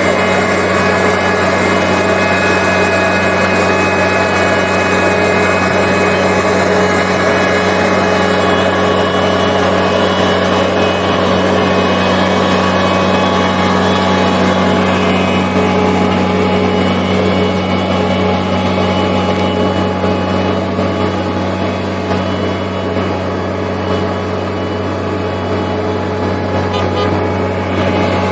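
Engine of a heavy road construction machine running steadily, a constant hum that eases slightly about two-thirds of the way through.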